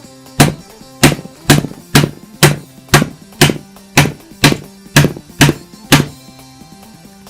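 About a dozen hard, evenly spaced strikes, roughly two a second, as a wifi router's circuit board is bashed to break it; they stop about six seconds in. Background music plays underneath.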